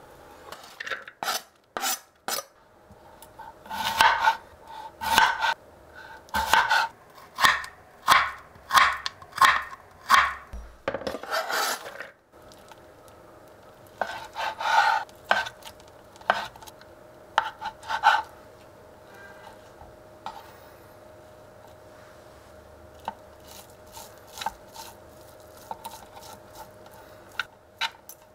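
Kitchen knife cutting carrot and ham on a cutting board: a run of sharp, regular knocks, about one and a half a second. Near the end come lighter clicks and scrapes of two forks pulling crab sticks apart on the board.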